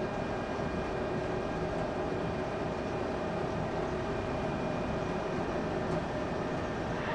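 Steady background hum and rush of a large workshop hall, with a few faint steady whines and no distinct knocks or clatter.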